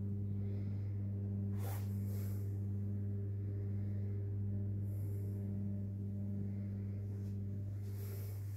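A steady low hum that holds one pitch throughout, with faint brief hisses now and then.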